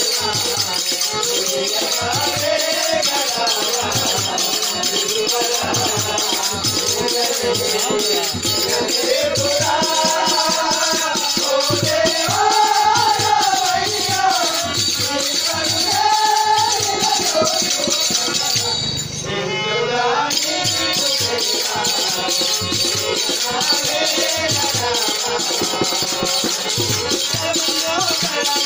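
Devotional bhajan singing, the melody rising and falling in long phrases over a steady, fast rhythm of hand percussion.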